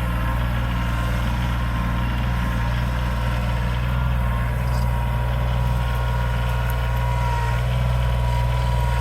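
Tractor engine running at a steady, even drone, with no change in speed.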